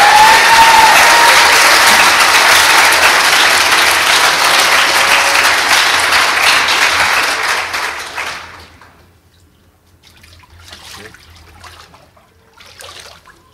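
Congregation applauding a baptism by immersion, with a single whoop at the start. The applause dies away about eight seconds in, leaving only faint scattered sounds.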